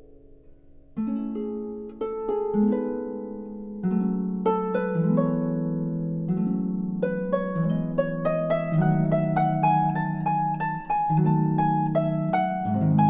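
Background music of plucked string notes, a melody that starts about a second in and runs on as a steady stream of notes.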